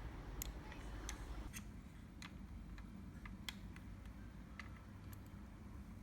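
Irregular sharp clicks and taps of small plastic parts being handled and worked apart during disassembly of a robot vacuum's wheel assembly, about a dozen over a few seconds, over a low background rumble.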